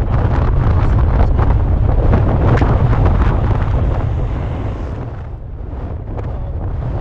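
Wind buffeting the microphone, with a dirt bike's engine passing close by, loudest in the first half and fading about five seconds in.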